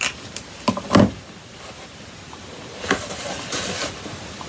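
Thick foiled designer series paper being folded and handled on a desk: two knocks about a second in, then a stretch of paper rustling and sliding around three seconds in.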